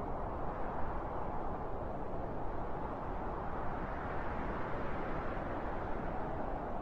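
Steady wind, a low even rush that swells slightly and eases again midway.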